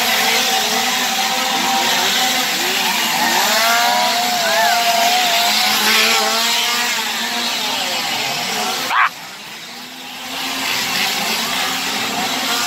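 Several chainsaws revving together, their engine notes rising and falling over one another. The noise drops suddenly about nine seconds in, then swells again.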